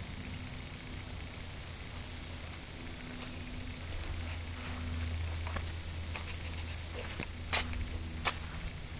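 Steady high hiss over a low hum, with a few sharp clicks near the end.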